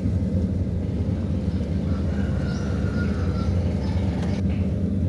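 Kubota DC-series combine harvester's diesel engine running with a steady, unbroken drone.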